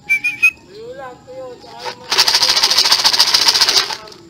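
A brief wavering whistle-like call and some soft gliding calls, then a loud, fast, even rattling that starts abruptly about two seconds in and stops just as abruptly after nearly two seconds.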